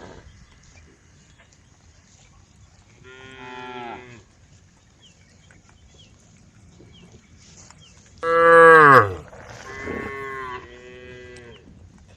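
Cows mooing: one call about three seconds in, then a loud call about eight seconds in that falls in pitch, followed closely by two more calls.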